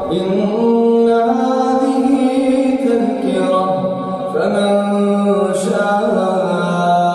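A male reciter chanting the Quran in a melodic tajweed style, drawing out long held notes.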